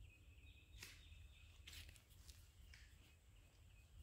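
Near silence: faint outdoor ambience with a faint thin high call over the first second and a half, and a couple of soft rustling footsteps.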